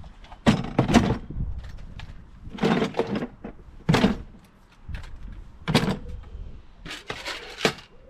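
Tools and toolbox parts being handled and moved: a series of about six separate knocks and clatters a second or so apart, with a longer rattle near the end.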